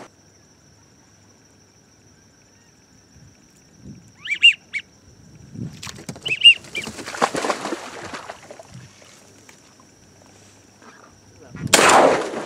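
A hunter's duck call blown in two short bursts of high notes, about four and six seconds in. Near the end, a sudden loud burst of noise.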